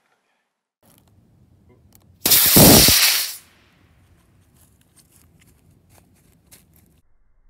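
Model rocket motor firing at launch: a sudden loud rushing hiss about two seconds in that lasts roughly a second and cuts off at burnout, followed by a few faint clicks.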